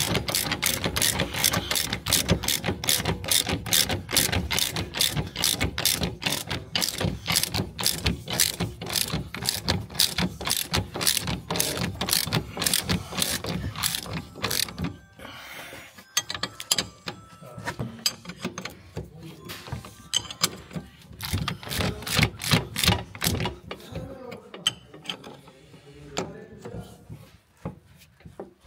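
Hand ratchet wrench clicking in quick, even runs as a nut is turned. It breaks off briefly about halfway through, then goes on more sparsely with another short burst of clicking.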